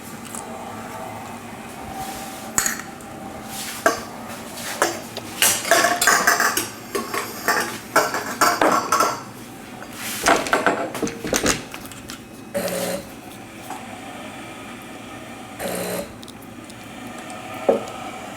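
SciCan STATIM 2000 sterilizer running a cycle, its replacement water pump buzzing in short pulses about three seconds apart in the second half, sounding normal now that it is primed. Before that, a stretch of clattering, like metal objects being handled.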